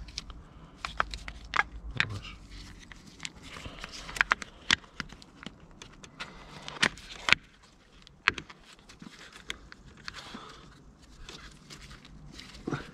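Hands refitting a part on an ATV handlebar: irregular clicks, taps and light scrapes of parts being handled, with the sharpest knocks between about four and seven and a half seconds in.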